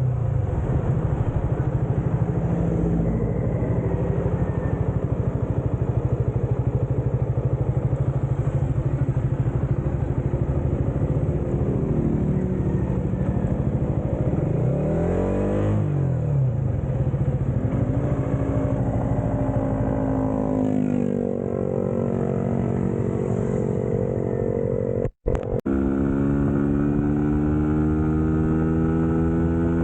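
Suzuki GSX-S150's single-cylinder engine running under way, mostly steady with some rises and falls in pitch. The sound cuts out for a moment about three-quarters of the way through, then the engine climbs slowly in pitch as it accelerates.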